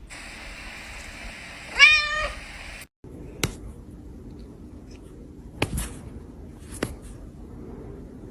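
A cat's single meow about two seconds in, wavering in pitch, over a steady hiss. After a cut, a few sharp clicks or taps.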